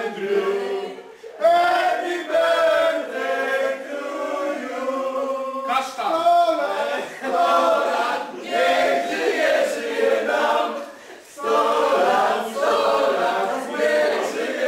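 A mixed group of men and women singing together in chorus, with short breaks between lines.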